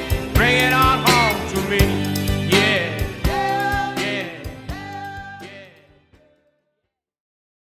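1960s soul-style rock song with the bass line removed: a male lead vocal over the band with drum hits, fading out to silence about six seconds in.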